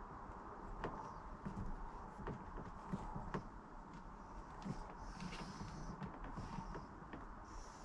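Faint, scattered light taps and clicks, with a brief rustle, from a self-adhesive dog-gate hinge being handled, lined up and pressed onto the door frame.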